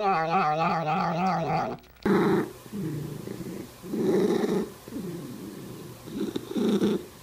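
A cat's drawn-out yowl tails off into a low, wavering moan. About two seconds in it cuts to a second cat making a run of low, rough rumbling pulses, each about half a second long with short breaks between.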